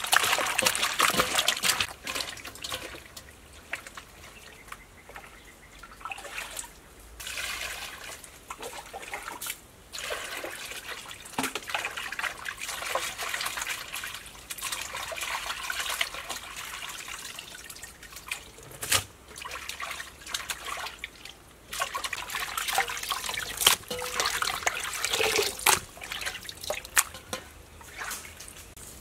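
Hands swishing and squeezing raw pork intestines in a metal basin of water to clean them: irregular splashing and trickling that comes and goes, with a few sharp knocks.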